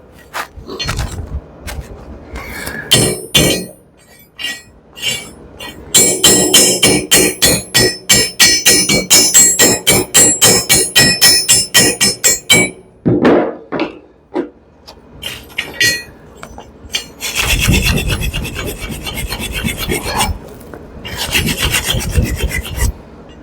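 Wire brush scrubbing slag off a fresh stick-weld bead on steel, in bursts of rapid back-and-forth strokes with a metallic ring, broken by pauses.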